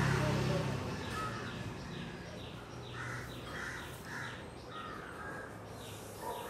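Crows cawing: several separate harsh caws, three of them close together about three seconds in. A rapid run of short high chirps carries on underneath.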